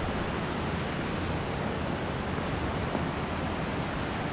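Steady rushing of the Barron Falls waterfall: an even, unbroken roar of falling water.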